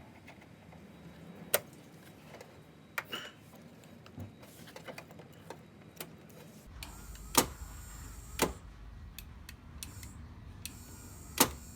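Scattered sharp clicks and small knocks from hand work on a car's door lock linkage and its clip, a handful of loud ones with fainter ticks between. A steady low hum comes in about two thirds of the way through.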